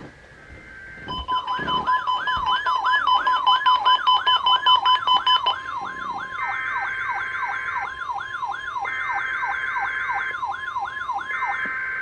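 NOAA Weather Radio's warning alarm tone, a steady tone that starts about a second in, with an alert receiver's warbling siren sounding over it in rising sweeps about three times a second. Three short bursts of a higher buzzing tone come in during the second half.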